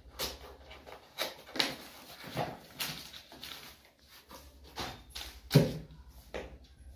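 Cardboard shipping package being cut and pulled open by hand: an uneven run of crackles, rustles and scrapes, with a sharp thump about five and a half seconds in.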